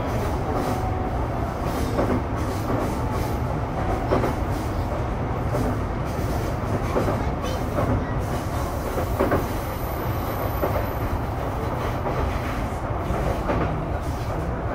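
Sotetsu 12000 series electric train running between stations, heard from inside motor car MoHa 12501: steady running noise with wheels clicking over rail joints now and then.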